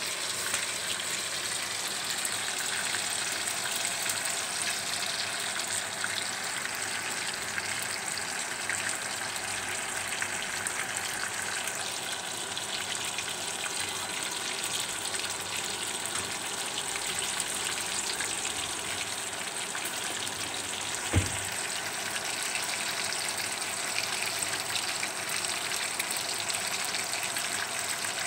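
Two whole Mozambique tilapia (mujair) frying in hot oil in a nonstick wok: a steady sizzling hiss. A single short thump about three-quarters of the way through.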